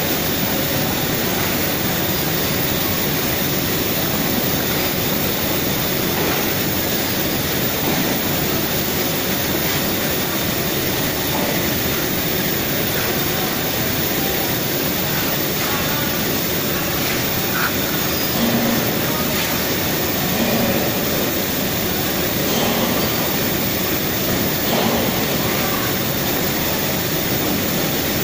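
Steady, loud machinery roar with no clear rhythm or change in pitch, with a few faint voices in the background.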